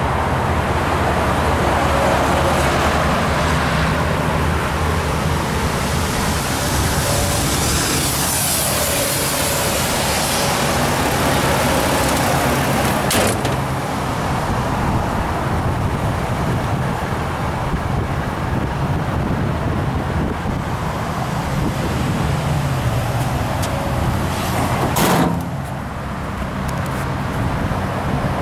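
2007 Toyota Tundra's 5.7-litre i-Force V8 idling steadily, with wind and handling noise on the microphone. Two sharp knocks come through, one about halfway and a louder one near the end.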